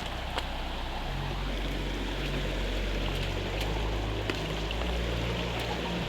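Steady rush of running water from a small river waterfall, with a low bass line of background music under it.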